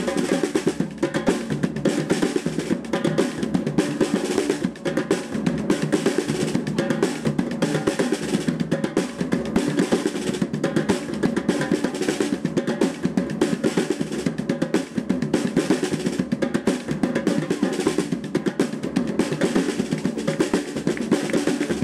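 A group of drummers playing hand-held drums together in a fast, steady rhythm of dense strokes that never pauses.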